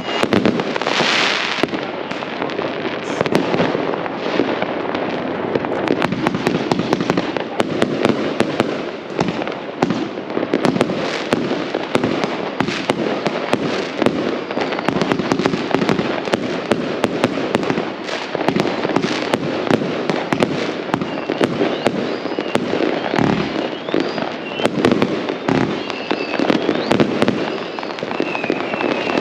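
Fireworks: a dense, continuous barrage of bangs and crackles with no pause, and a brief hissing rush about a second in.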